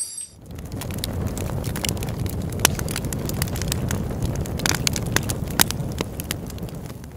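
Campfire crackling: a steady low rush of burning wood with many sharp pops and snaps, fading out near the end.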